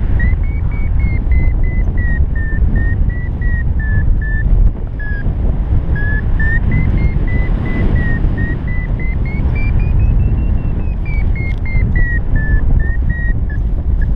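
Paragliding variometer beeping in a quick chain of short beeps, about three a second, their pitch drifting up and down and highest a little past the middle: the tone of the glider climbing in lift. Heavy wind rumble on the microphone underneath.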